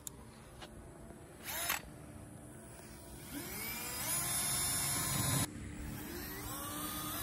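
Cordless drill, switched out of hammer mode, drilling holes: its motor whines up in pitch about three seconds in, runs for a couple of seconds and stops suddenly, then spins up again near the end. A brief knock comes earlier.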